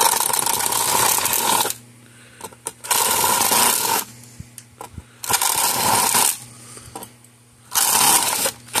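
Cordless impact driver used as a drill, running in four short bursts as a drill bit bores out the centre pins holding a plastic terminal block.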